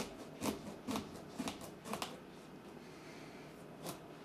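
Serrated knife sawing back and forth through the tough rind of a raw spaghetti squash, about two strokes a second. The strokes stop about two seconds in, and one more comes near the end.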